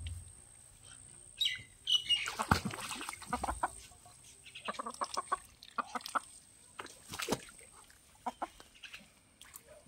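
Ducks dabbling with their bills in a shallow muddy puddle: bursts of quick wet clicking and splashing, with a short bird call about one and a half seconds in.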